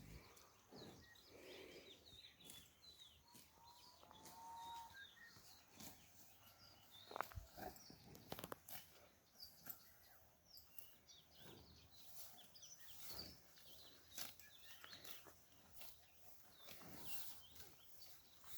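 Near-silent rural ambience: faint small-bird chirps scattered throughout, with occasional soft clicks and knocks.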